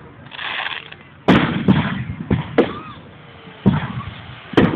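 Aerial fireworks shells bursting: a series of about six sharp bangs, each followed by a rumbling echo, heard through a phone microphone.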